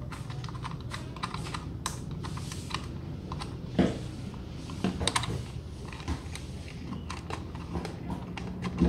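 Irregular small clicks and taps of metal and plastic parts as a chainsaw adapter's clamp is handled and fitted onto an angle grinder, with a louder knock about four seconds in and a few more near five seconds.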